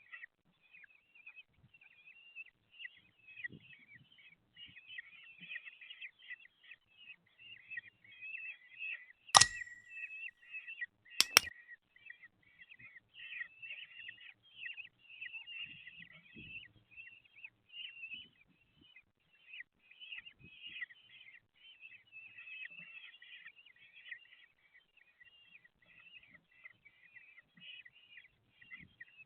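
Common kestrel chicks in the nest box calling without a break, a shrill, rapid chittering typical of begging for food, with two sharp knocks near the middle.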